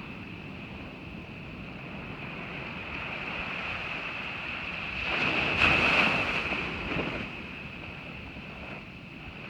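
Ocean surf washing onto a beach, with wind buffeting the microphone; a wave surges louder about five seconds in and dies back by about seven seconds.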